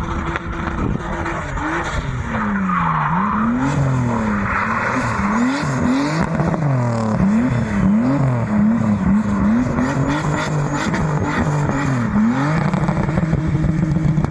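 Car engine revving up and down over and over, about once a second, with tyres squealing as the car spins donuts. Near the end the revving stops and the engine settles to a steadier note.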